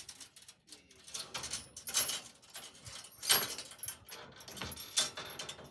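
Rustling and scuffling, with several louder scraping clatters one to two seconds apart.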